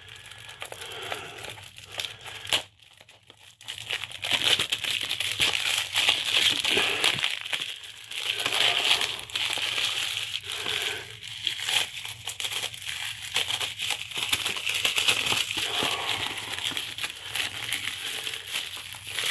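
Plastic wrap being picked and peeled off a Blu-ray case in small pieces, crinkling and crackling irregularly, with a short pause about three seconds in.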